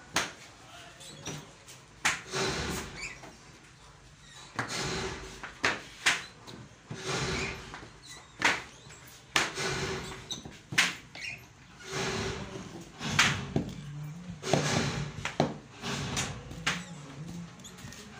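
Hand screen printing of foam sandal soles: a hinged wooden screen frame knocks down onto the bench and is lifted again while ink is drawn across the screen. The result is a run of short wooden knocks and scraping swishes, about one every second or two.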